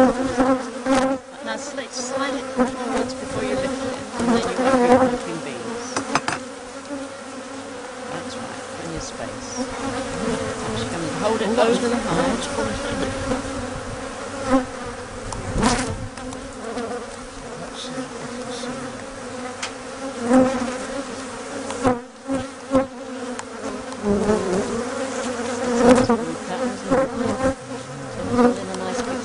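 Honeybee colony buzzing, a dense steady hum from many bees that the beekeepers find noisy. Scattered short clicks and knocks sound through it.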